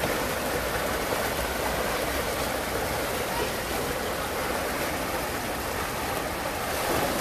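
Water rushing steadily out of the mouth of an enclosed tube waterslide and churning in the run-out trough below it.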